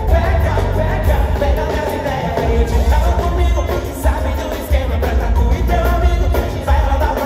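Live pop music through a concert PA: a singer's voice over a heavy, pulsing bass and drums, heard from within the audience.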